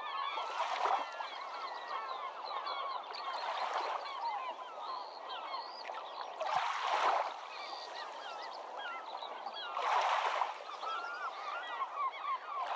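A flock of birds chattering with many short rising and falling calls, goose-like honks among them. A rushing swell of noise rises and falls about every three seconds over the calls.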